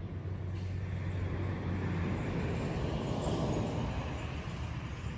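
A motor vehicle passing by, with engine and tyre noise that swells to its loudest about three seconds in and then fades, over a low steady hum.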